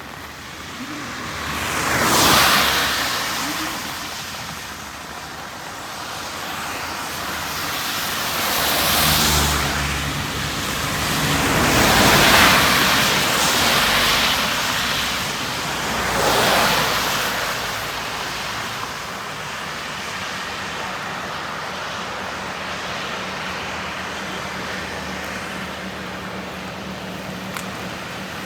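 Vehicles passing one after another on a rain-soaked road: four swells of tyre spray hiss rise and fade, the loudest about two seconds in and around twelve seconds. A truck's engine hum comes through near the second pass. A steady hiss of heavy rain fills the second half.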